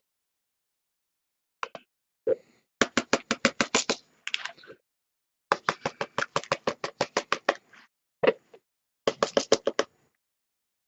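Quick runs of light taps, about ten a second, in three bursts with short pauses and a few single taps between.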